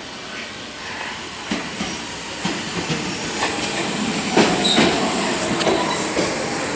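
New York City Subway train pulling into the station and passing close by, growing louder as it nears. Its wheels clack over the rail joints in quickening, uneven knocks, with a brief high wheel squeal about four seconds in.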